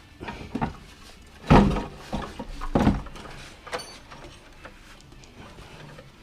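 Handling knocks: two heavy thuds about a second and a half apart, with a few lighter clicks and knocks around them.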